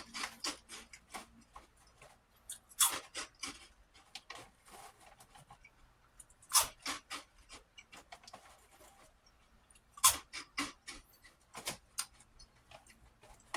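Spicy prawn crackers being bitten and chewed close to the microphone: crisp crunching in about five bursts, each a loud bite followed by quicker, fainter crunches.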